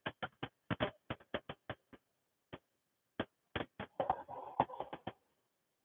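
A series of light, irregularly spaced clicks and ticks, with a short patch of rustling about four seconds in.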